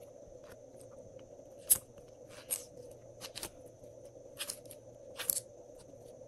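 Glossy slime being pulled up and pressed by fingers, giving short sticky clicks and pops about once a second, the loudest a little under two seconds in.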